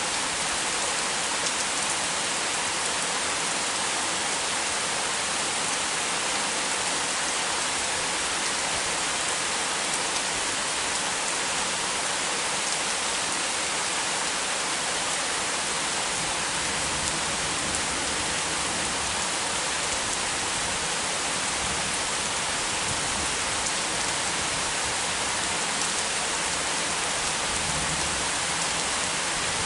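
Heavy rain falling steadily, a constant even hiss with no thunder standing out.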